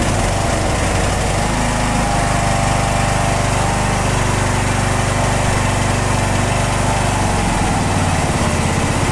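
Riding mower's Briggs & Stratton I/C engine running steadily just after its first start on choke with a newly fitted aftermarket Walbro-style carburetor. The engine note shifts slightly about two seconds in and again near the end.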